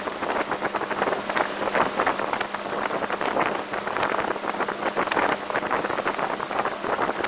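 Wind buffeting the microphone and the rush of water off a 1985 Sea Sprite speedboat running fast, with a steady engine hum underneath.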